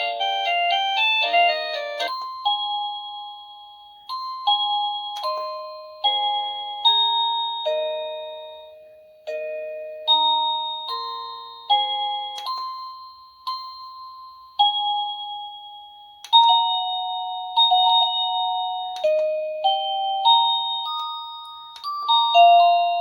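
Wireless doorbell chime unit playing one of its selectable electronic melody tunes. A quick run of notes in the first two seconds gives way to a slower tune, one clear note at a time, each ringing and then fading.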